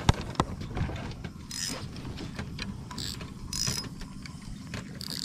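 Fishing reel being worked: a run of small mechanical clicks and ratcheting ticks, with four short whirring bursts.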